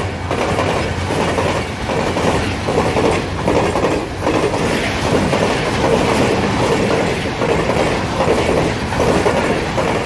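Pakistan Railways passenger coaches rolling past close by, their wheels clattering over the rail joints in a steady clickety-clack that swells about once a second.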